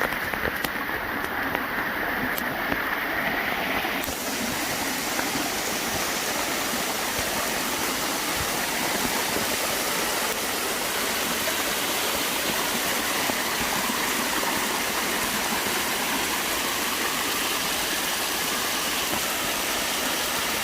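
Steady rush of water, a constant dense hiss that grows brighter about four seconds in.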